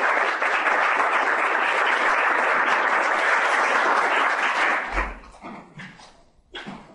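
Audience applauding: dense, even clapping that dies away about five seconds in. A few short knocks follow near the end.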